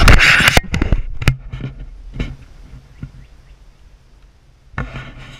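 Camera being handled and moved in its waterproof housing: a loud rubbing scrape, then a string of knocks and taps fading out over the next two seconds, and another short scrape near the end.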